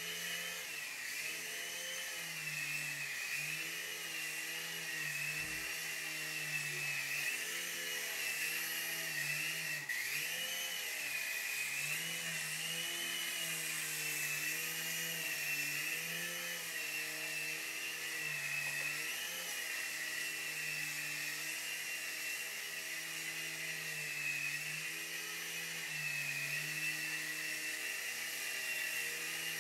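Night Hunter micro RC coaxial helicopter in flight: its small electric motors give a high whine over a rotor hum. The pitch wavers up and down every second or two and never stops.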